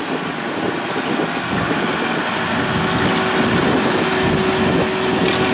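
Kubota combine harvester's diesel engine running steadily, with a steady whine joining about halfway through.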